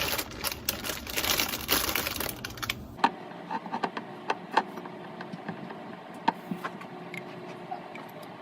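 Typing on a keyboard: irregular light key clicks, dense over a hiss for the first three seconds, then sparser and quieter after that.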